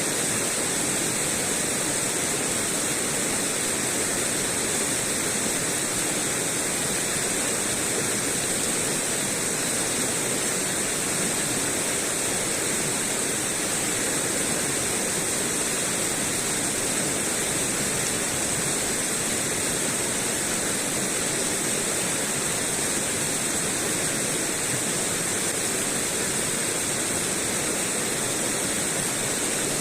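Steady, unbroken rushing noise with a bright hiss on top and no single sounds standing out.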